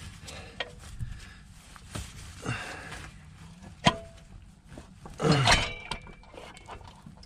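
Manual transmission being slid back off the engine on a transmission jack: scattered metallic clinks and knocks, a sharp clink about four seconds in, and a louder scraping clunk a little after five seconds as the bellhousing moves away from the engine.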